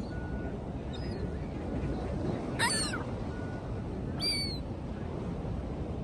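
Gulls calling: a faint call about a second in, then two louder falling cries about a second and a half apart, the first the loudest, over a steady rush of wind and surf.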